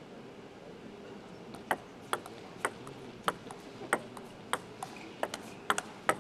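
Table tennis rally: the plastic ball ticks sharply off the players' bats and the table, roughly two hits a second, starting a little under two seconds in.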